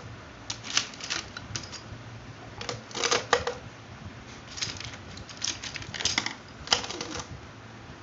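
Plastic sketch pens and markers clattering and clicking as they are dropped one by one into a pencil holder made from cut plastic bottles. The clicks come irregularly, a few at a time, with the busiest rattles about three seconds in and again near the end.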